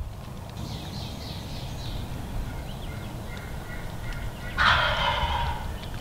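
Wild turkey gobbler gobbling once, loud and close, about four and a half seconds in.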